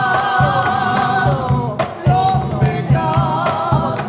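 Peruvian criollo song: a woman singing long held notes over acoustic guitar and cajón.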